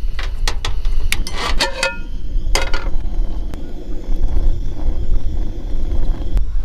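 Wind buffeting the microphone in a steady low rumble, with a quick run of clicks and light clinks over the first three seconds.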